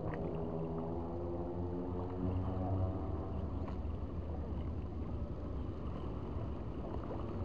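A motor engine running with a steady hum that fades out about three seconds in, over a constant low rumble.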